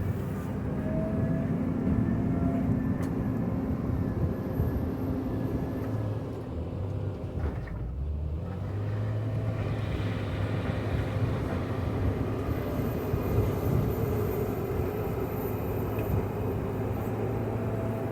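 JCB 426ZX wheel loader's diesel engine working steadily as the machine cuts into gravel. The drone dips briefly about eight seconds in, then picks up with a stronger low note.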